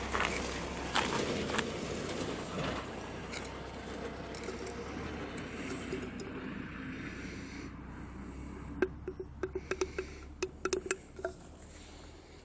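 Aluminium drink can being handled, with a run of quick light clicks and taps in the second half. A background rumble fades away over the first half.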